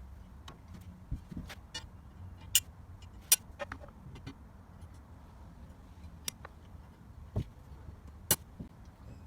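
Scattered sharp clicks and knocks of metal parts being handled and fitted together while the handle is mounted onto a Scott Bonnar Model 45 mower's handlebars, about a dozen irregular strikes with three louder clacks.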